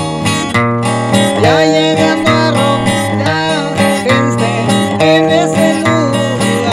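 Acoustic guitar playing an instrumental passage of a corrido: a picked melody with sliding notes over sustained bass notes.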